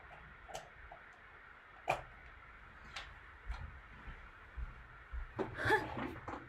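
Chopsticks and a frying pan knocking lightly against a plate while scrambled egg is scraped out onto noodles: a few sharp clicks, the loudest about two seconds in. A child's voice sounds briefly near the end.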